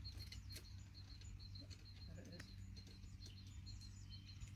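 Faint high chirps at one steady pitch, repeated evenly, mostly in pairs, a few times a second, with a few soft clicks or rustles near the start.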